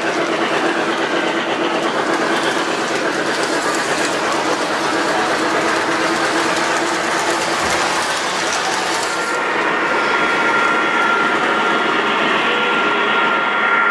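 Three-rail O-gauge model train running along the track: a steady rolling rattle of wheels on rails. About nine seconds in the sound changes and a steady high whine joins as a model diesel locomotive approaches.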